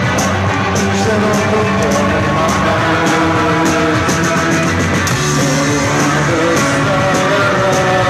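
A live rock band playing loudly, with electric guitars, bass and drums, and cymbal hits at a regular beat.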